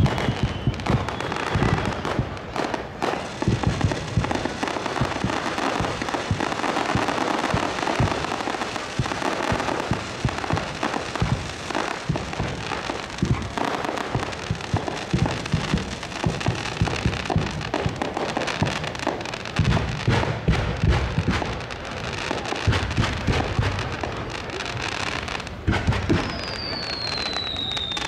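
Fireworks display: a rapid, continuous barrage of bangs and crackling as firework shells are launched and burst overhead, with a falling whistle near the end.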